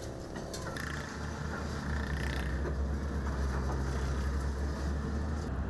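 Heavy construction machinery's diesel engine running, a steady low rumble that grows louder about two seconds in.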